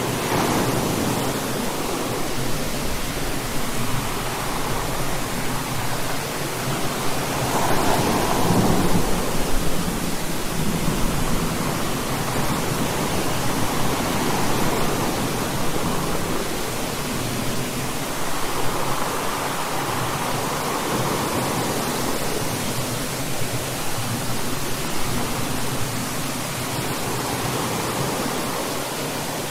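Thunderstorm: steady rain hissing throughout, with a thunderclap right at the start followed by long rolling rumbles of thunder that swell and fade, loudest about eight to ten seconds in.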